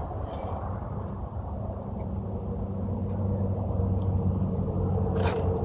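Insects buzzing steadily with a low, steady mechanical hum underneath that slowly grows louder, and a few clicks near the end.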